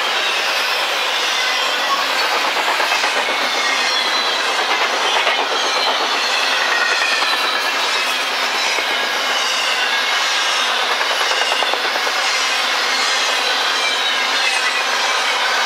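Double-stack intermodal well cars rolling past at speed: a steady clatter of wheels over the rail, with several high squealing tones from the wheels sliding slowly down in pitch.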